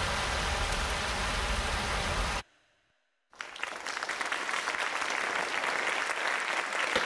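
A fire extinguisher spraying, a steady hiss that cuts off abruptly about two and a half seconds in. After about a second of silence, audience applause rises and carries on.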